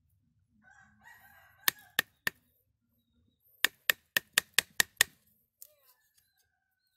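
Sharp knocks of a steel blade striking into a ficus root as it is split: three strikes, then a quick run of about seven at roughly five a second.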